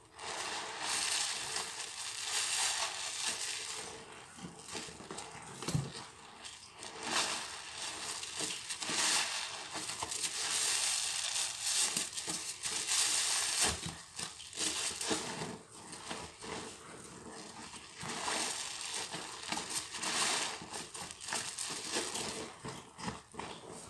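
Sudsy kitchen sponges squeezed by hand in thick soap foam: wet squelching and crackling of suds, swelling with each squeeze every second or two.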